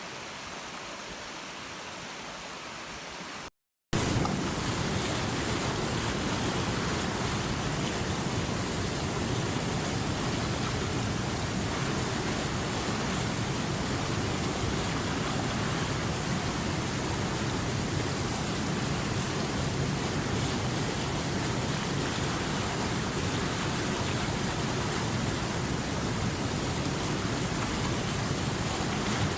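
Steady rushing water, an even hiss with no distinct events. A few seconds in it cuts out for a moment, then comes back louder and fuller.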